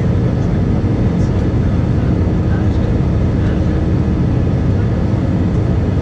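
Steady cabin noise of an Airbus A320-200 climbing after take-off: the jet engines running and air rushing past the fuselage, heard from a window seat over the wing, with a faint steady hum under the noise.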